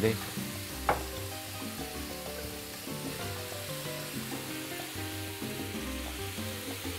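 Pork belly pieces sizzling in a frying pan as a spoon stirs shrimp paste through them, with background music.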